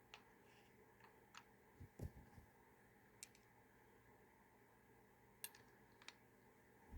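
Faint, scattered clicks and light knocks of plastic action-camera parts being handled and fitted together, about six over several seconds, with a duller knock about two seconds in.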